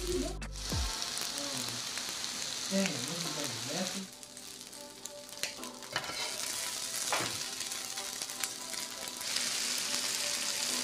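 Food sizzling on an electric griddle, with scattered clicks and scrapes of a metal spatula on the griddle plate. The sizzle grows louder near the end as shrimp fry in a cloud of steam.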